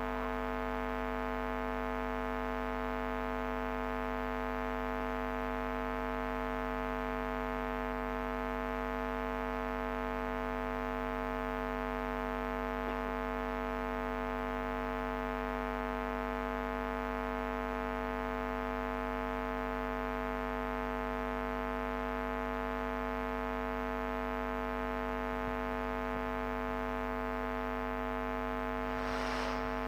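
Steady electrical buzzing hum from the sound system, with many even tones and no change in pitch or level.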